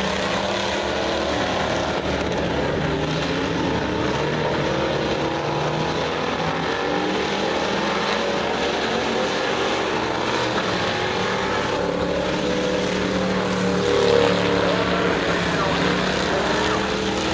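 Dirt-track stock car engines racing around a clay oval, several cars at once, their pitch rising and falling as they go through the turns. The sound swells about fourteen seconds in as a car comes past near the fence.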